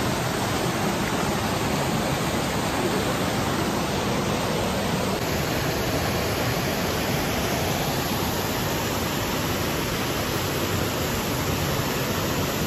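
Small waterfall on a mountain creek pouring into a rocky pool: a steady rush of falling and churning water.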